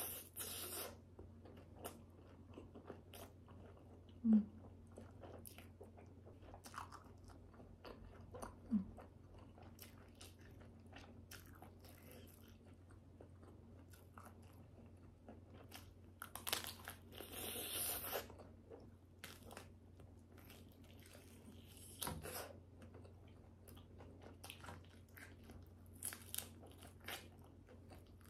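Mouth sounds of eating a cheese-filled sausage: biting through the casing and chewing, with irregular wet clicks and smacks and a few louder bursts.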